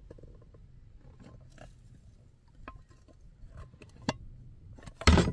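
Small clicks and a sharp knock as a metal Ridgemonkey pan is handled over a ceramic plate, then a short loud knock near the end as the cake is turned out of the pan onto the plate.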